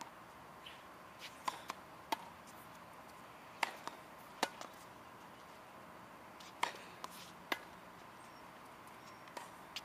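Tennis balls struck by a racket and bouncing on a hard court: sharp pops at irregular intervals, some in quick pairs.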